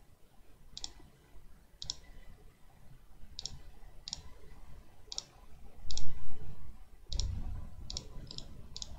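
Computer mouse button clicking roughly once a second, each click a quick press-and-release, while lines are drawn in a CAD sketch. A low rumble, loudest about six seconds in, runs under the later clicks.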